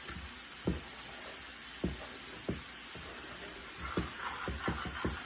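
A spoon stirring a batter in a mixing bowl and knocking against its side, a few separate knocks at first, then quicker stirring near the end, over a faint steady hiss.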